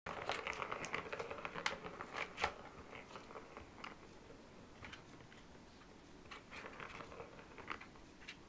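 Plastic ball rolling and rattling around the enclosed track of a Catit Design Senses Play Circuit toy as a cat bats at it, with sharp clicks and knocks of ball and paw against the plastic. It is busiest in the first couple of seconds, with a few harder knocks, then comes in shorter bouts.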